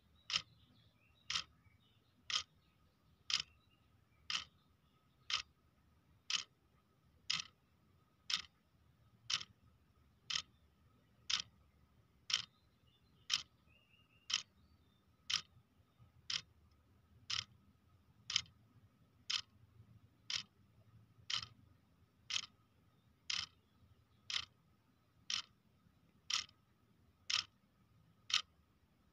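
Clock ticking steadily, about one sharp tick a second.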